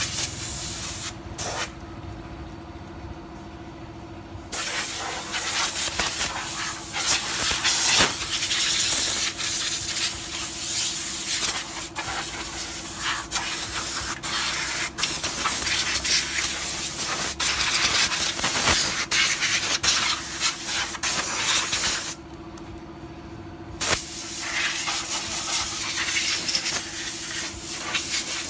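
Compressed-air blow gun hissing in long blasts, blowing water off a freshly washed motorcycle to dry it. The blast stops for about three seconds near the start and for a second and a half near the end, leaving a steady hum underneath.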